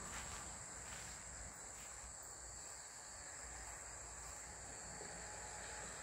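Steady, high-pitched insect chorus of crickets, over a faint low background rumble.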